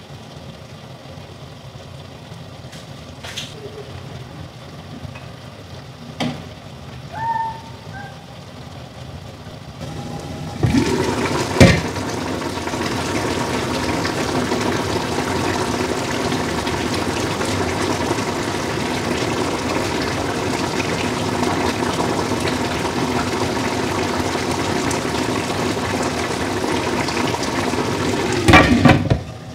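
A pot lid is lifted with a clank about ten seconds in, and then a pot of lamb stew bubbles and sizzles steadily in the open pan. Near the end the glass lid clatters back on and the bubbling is muffled.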